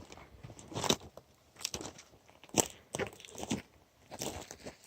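Footsteps crunching at an even walking pace, about one step a second.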